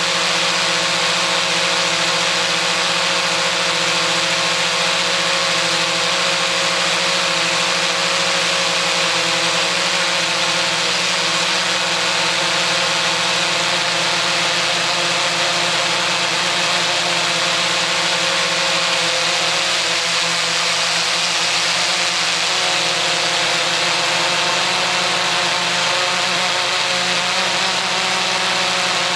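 XK X380 quadcopter's motors and propellers whirring steadily in flight, heard from on board, over a strong hiss of rushing air. The motor pitch wavers a little about two-thirds of the way through.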